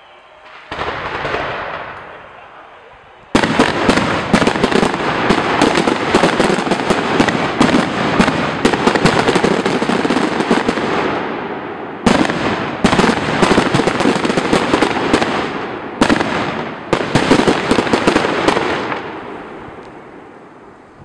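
Fireworks finale: one shell bursting about a second in, then from about three seconds in a dense barrage of rapid bangs and crackles, surging again around twelve and sixteen seconds before dying away near the end.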